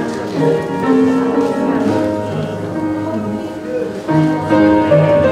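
Instrumental music with held chords changing every second or so.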